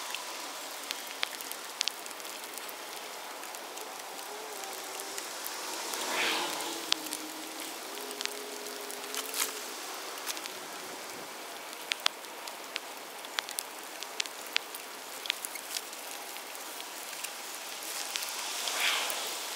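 Light rain pattering, with scattered sharp ticks of drops landing; a brief swell of hiss about six seconds in and again near the end.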